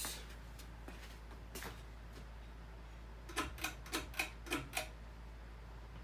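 Fanimation Huxley ceiling fan running on low in reverse, a faint steady hum. A little past three seconds in comes a quick run of about six sharp clicks, roughly a quarter second apart.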